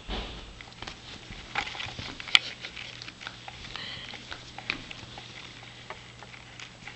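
Puppy playing with a toy ball on a fleece blanket: scattered soft taps, scuffles and rustling as it paws and mouths the ball and is handled, with one sharp click a little over two seconds in.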